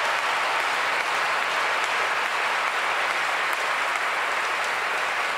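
Large audience in a packed arena applauding steadily.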